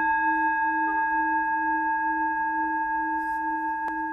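A singing bowl ringing out after a strike, several steady overtones over a low tone that wavers slowly, fading gradually.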